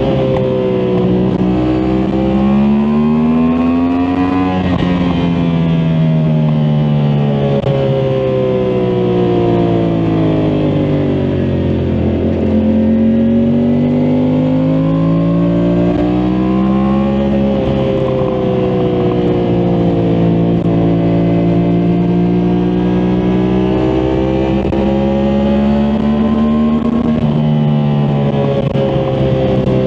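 2023 Yamaha MT-10 SP's crossplane inline-four engine under way: the revs climb to a gear change about four seconds in, then fall away slowly for several seconds. They climb again, hold steady for a while, and rise once more near the end.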